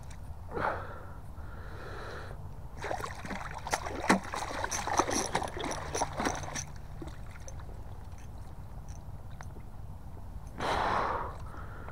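A northern pike splashing in an ice-fishing hole and slapping on the ice as it is hauled out. It is a flurry of splashes and slaps that starts about three seconds in and lasts about four seconds.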